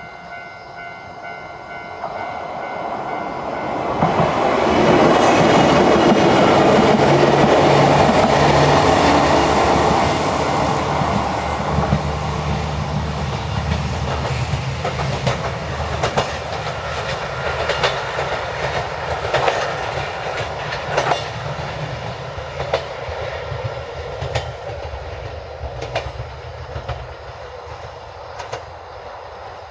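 Wakayama Electric Railway 2270-series electric train passing: its running noise builds over the first few seconds, is loudest for several seconds, then fades while the wheels click over the rail joints.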